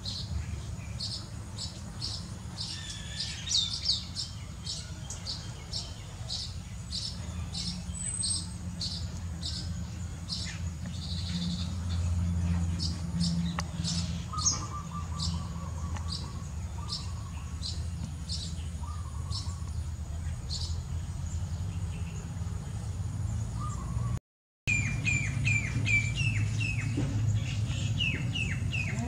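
Baya weavers chirping: a steady run of short high chirps, about two a second, over a low steady rumble. After a break near the end, the chirps turn into short notes that slide downward.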